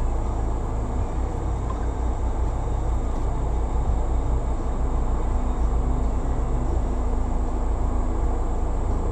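Stock 2019 Jeep Wrangler JLU running steadily at trail speed: a continuous low rumble with a faint, even engine hum.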